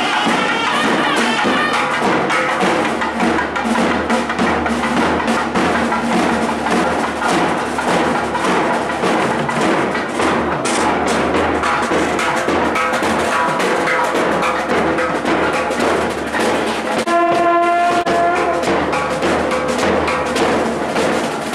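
South Indian temple procession music: a nadaswaram reed pipe playing a melody over rapid thavil drum strokes, with one long held note about three-quarters of the way through.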